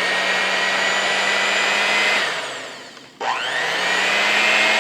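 Electric kitchen mixer motor running with a steady whine, winding down to a stop about two seconds in, then switched back on and spinning up to speed again.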